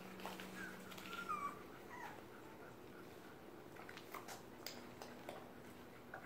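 Nursing puppies whimpering softly: a few faint, short squeaks in the first two seconds, then scattered soft clicks.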